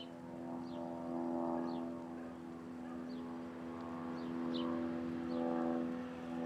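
Bird calls: short, high chirps, each a quick falling note, repeated irregularly about every half second to a second, over a steady low hum of several held tones that swells and fades.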